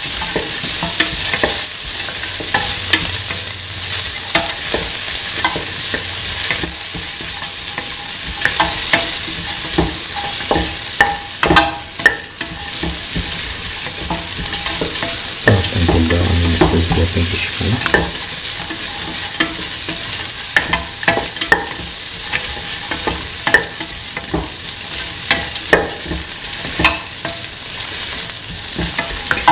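Sliced onions frying in oil in a stainless steel pan, a steady sizzle, while a spatula stirs them with frequent scraping clicks against the pan. A short low hum sounds for about two seconds midway.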